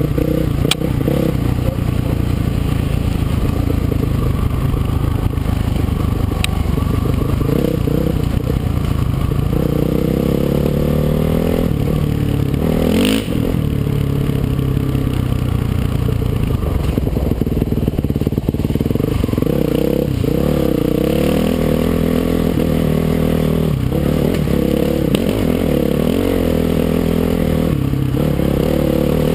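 Dirt bike engine running under load on a rocky trail, its pitch rising and falling as the throttle is worked, with a long climb in revs about ten seconds in and a sharp knock soon after.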